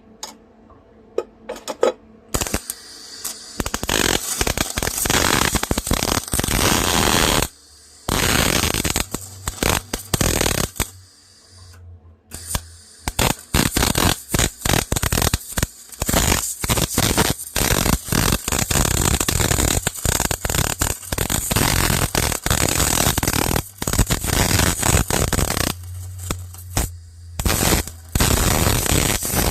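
Electric arc welding on a zero-turn mower-deck bracket: the arc's crackling sizzle starts about two seconds in and runs in several long beads, stopping briefly three times.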